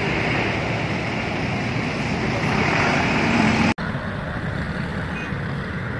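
Coach engine running as the bus pulls away, over steady busy road traffic. The sound cuts out for an instant a little past the middle and comes back duller.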